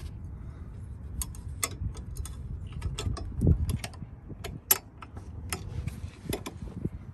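Irregular sharp plastic clicks and rattles as a zip tie and the plastic console parts are handled and fitted, the loudest about three and a half and just under five seconds in.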